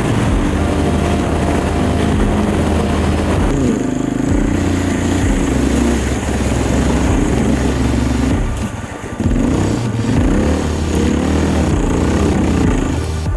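Enduro motorcycle engine heard on board, running steadily at speed, then revved up and down again and again. The throttle is shut briefly about eight and a half seconds in.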